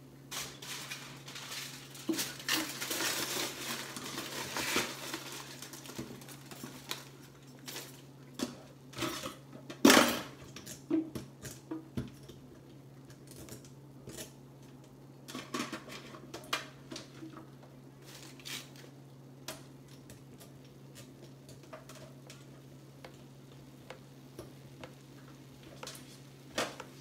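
Dishes, pans and cutlery clattering and knocking as kitchen mess is cleared away, in scattered knocks with one loud clank about ten seconds in. A steady low hum runs underneath.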